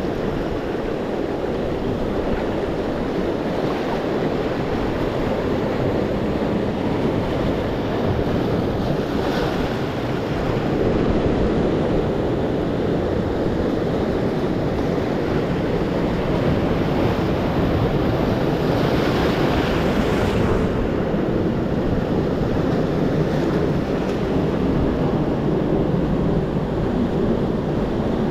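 Ocean surf breaking and washing over the rocks of a jetty, a steady rush that swells louder twice, about a third and two-thirds of the way through. Wind buffets the microphone.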